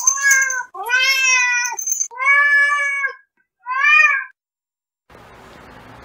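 Domestic cat meowing four times, each meow under a second long and the last one shortest, with a thin high steady tone sounding during the first two. From about five seconds in there is only faint room hiss.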